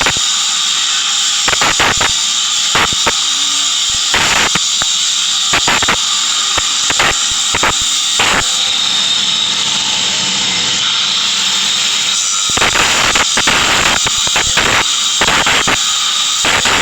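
Welding arc hissing steadily, with irregular sharp crackles and pops from spatter.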